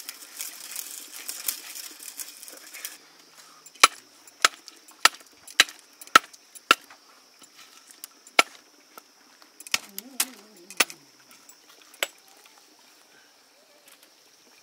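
Knife chopping buffalo leg meat: sharp single strokes, a run of six about two a second, then a few more spaced further apart. Before the chopping starts there is a soft rustling for about three seconds.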